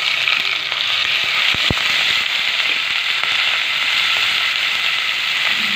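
Ginger-garlic paste hitting hot oil with fried onions and cumin, crackling and spattering in a loud steady sizzle that starts suddenly as the paste goes in.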